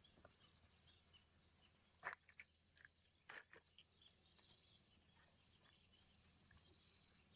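Near silence: faint outdoor ambience, with a couple of soft knocks about two and three and a half seconds in.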